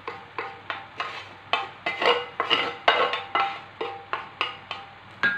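Wooden spatula knocking and scraping against a metal grill pan, about three sharp knocks a second with the pan ringing briefly after each, as sautéed vegetables are scraped out into a bowl.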